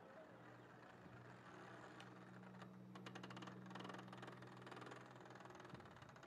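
Faint, steady low hum of the Traxxas Funny Car RC drag car's electric motor as the car creeps backward, with a quick run of light ticks in the middle; the hum stops near the end.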